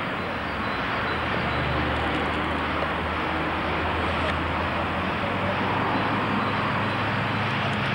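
Steady road traffic noise with the low hum of a vehicle engine running.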